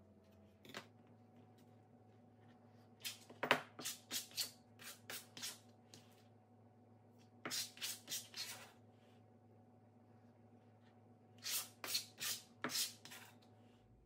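Food scissors snipping fresh cilantro in three quick runs of sharp snips, several a second.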